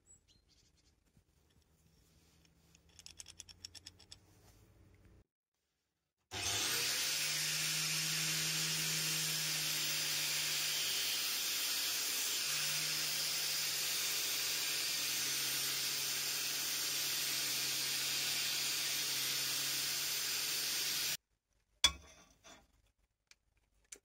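Angle grinder with an abrasive disc cutting steel: a loud, steady hissing whine over a low motor hum for about fifteen seconds, starting and stopping abruptly. Faint taps come before it and a few sharp clicks after.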